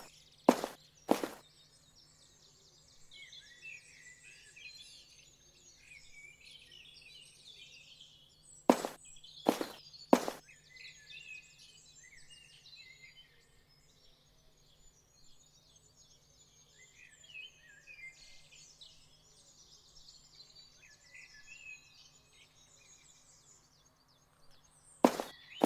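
Small birds chirping and twittering, with short runs of two or three sharp knocks near the start, about nine seconds in, and at the end, over a faint steady hum.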